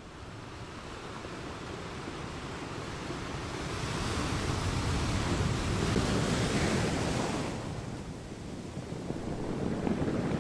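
Ocean surf washing onto a beach: a wave swells and breaks about four seconds in, ebbs away by about eight seconds, and another begins to build near the end.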